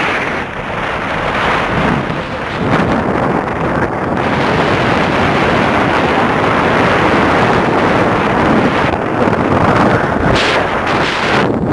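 Strong wind buffeting the microphone from a moving vehicle, a dense rushing noise mixed with the vehicle's road noise, a little louder from about four seconds in.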